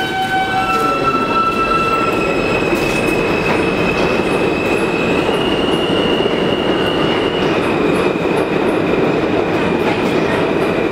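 Kawasaki-built R160 subway train pulling out of the station and gathering speed: a loud, steady rumble of wheels on rail, with high electric propulsion tones above it that shift pitch in steps as it accelerates.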